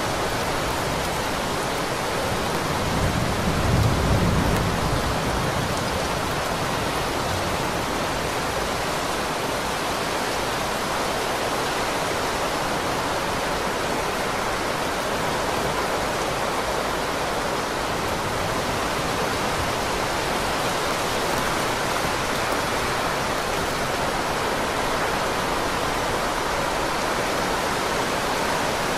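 Heavy rain falling in a steady hiss, with a low rumble of distant thunder swelling for a couple of seconds about three seconds in.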